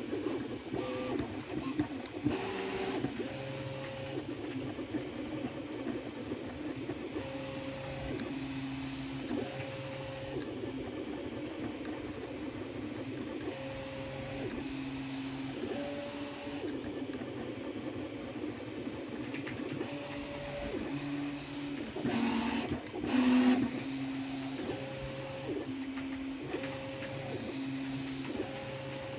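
Original Prusa Mini 3D printer printing: its stepper motors sing in steady tones that jump between a lower and a higher pitch every second or two as the print head traces the part's walls, over a steady low hum. About three-quarters of the way through comes a brief louder, rougher stretch of movement.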